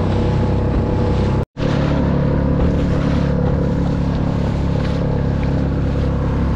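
Small outboard motor running steadily with the skiff under way, with water splashing along the hull and wind on the microphone. The sound cuts out completely for a moment about one and a half seconds in.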